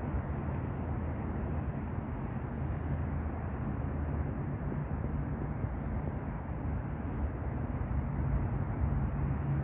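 Steady low outdoor rumble with a faint hum, with no separate events standing out.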